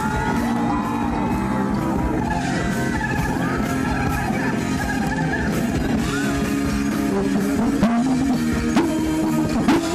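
Live rock music from a band on a concert stage, with guitar and singing, played loud and without a break.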